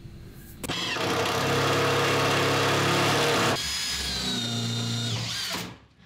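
A power tool's electric motor runs steadily, stops, and a second run of different pitch follows. The second run winds down shortly before the end.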